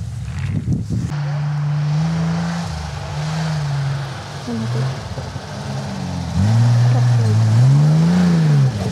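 Off-road 4x4 engine revving up and down under load, its pitch rising and falling repeatedly, louder and harder-worked in the last few seconds.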